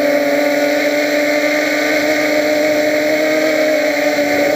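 Quadcopter's electric motors and propellers buzzing steadily in flight, heard from its onboard camera, a constant pitched hum.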